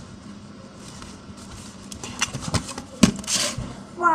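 Scattered clicks and soft rustles of a tablet's box and accessories being handled, with one sharp click about three seconds in. A cat starts a long, falling meow at the very end.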